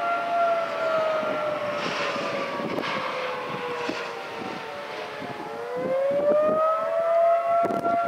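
Federal Signal 2T22 dual-tone outdoor warning siren in attack mode. Its two-tone wail falls slowly in pitch for about five seconds, then rises back to its high steady note near the end. Wind gusts buffet the microphone throughout.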